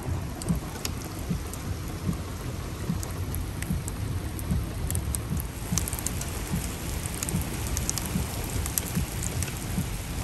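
Heavy rain pouring down onto flooded pavement: a steady hiss with a low rumble underneath and scattered sharp ticks of drops striking close by.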